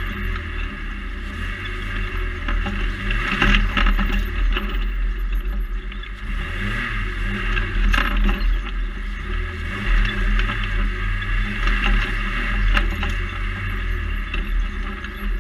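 Ariel Nomad off-road buggy's Honda four-cylinder engine revving up and down repeatedly as it is driven hard over rough dirt tracks, heard from on board. A steady rush of wind and rolling noise runs underneath, and a few sharp knocks come as the car jolts over bumps.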